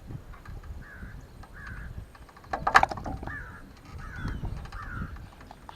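A bird calling over and over, about five short calls, with one sharp knock about two and a half seconds in.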